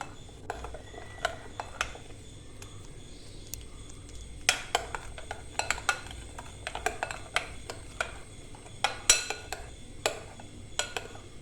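A spoon stirring a buttermilk marinade in a bowl, clinking and scraping against the bowl in irregular taps. The loudest taps come about four and a half seconds in and again around nine seconds.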